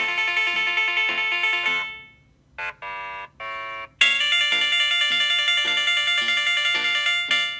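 Samsung Galaxy Note 9 ringtones: one bright bell-like melody fades out about two seconds in, a few short steady tones follow, and a new plucked, chime-like melody starts about four seconds in.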